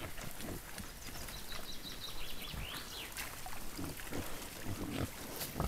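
Wild boars sloshing and rooting through a muddy wallow, with scattered low grunts over a steady hiss; a bird's thin whistle sounds about two seconds in.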